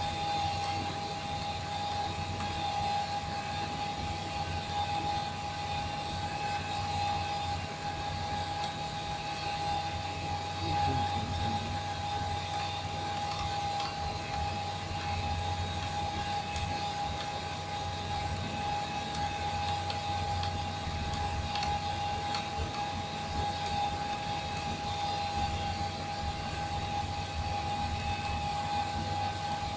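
Steady machine hum with a constant high-pitched whine, with a few faint clicks from turning the GPS unit's knob and pressing its buttons.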